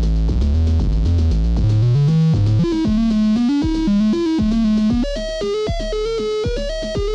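Mutable Instruments Anushri analog monosynth playing a sequenced pattern of stepping notes. A heavy bass line gives way about two and a half seconds in to a higher, brighter line, which moves up again about five seconds in.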